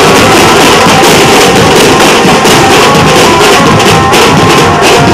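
Nashik dhol ensemble: several large barrel dhols beaten together in a dense, driving rhythm, very loud and close, with no gaps.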